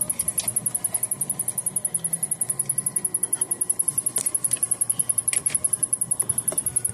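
Samsung rear-projection CRT television's power circuitry ticking: a fast, even, high-pitched ticking, about a dozen ticks a second, with a few separate clicks mixed in. The owner takes the ticking for something shorting out on the main power board, with none of the internal fuses blown.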